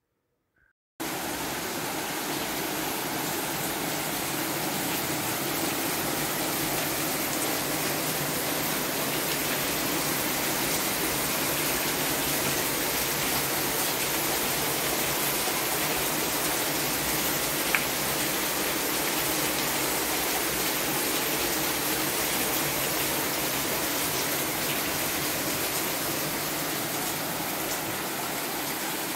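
Steady rain falling, a constant even hiss that starts about a second in, with a single brief click partway through.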